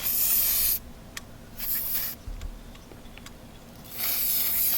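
Aerosol can of silicone spray hissing in three bursts: one at the start, a shorter one about two seconds in, and a longer one near the end. The spray coats a boat's bailer body so that it slides into its new gasket.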